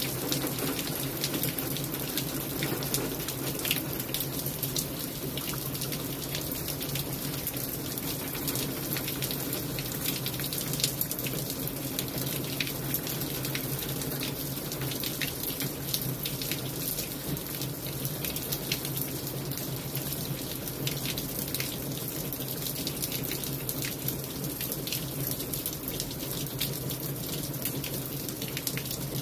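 Steady rain falling on wet brick paving, with drops splashing into a thin film of standing water and many small sharp drop ticks.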